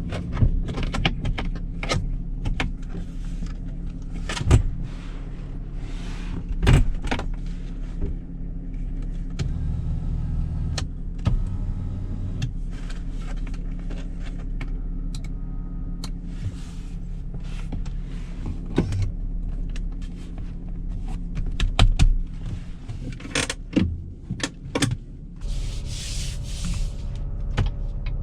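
In-cabin sound of a 2019 Chevrolet Colorado 4WD pickup with its 3.6-litre V6 petrol engine running as it is driven over rough ground: a steady low engine hum with frequent sharp knocks and clunks. The engine note swells for a few seconds about ten seconds in, and a brief hiss comes near the end.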